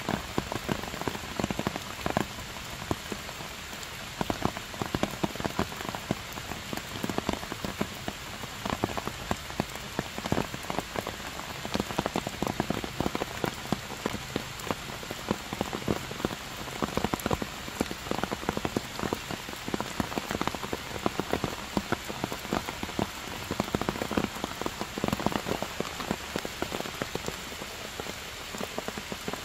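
Heavy rain falling steadily on stone and foliage, with many sharp single drops striking close by.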